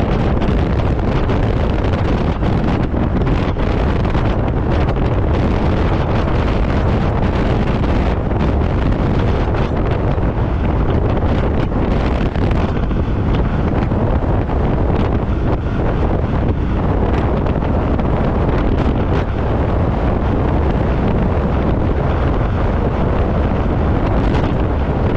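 Snowmobile riding along a trail at speed: a steady rush of wind buffeting the microphone, with the sled's running noise beneath it.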